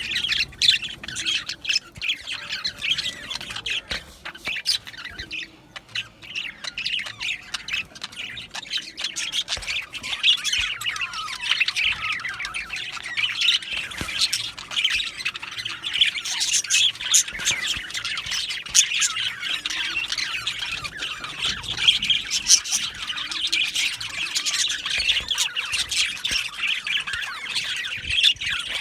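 A flock of budgerigars chattering and chirping continuously, many birds at once with overlapping warbles and sharp squawks.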